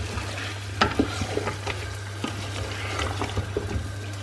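A wooden spoon stirring chunks of potato through a simmering, sizzling spice masala in a large metal pot, the spoon scraping and knocking against the pot several times, loudest about a second in.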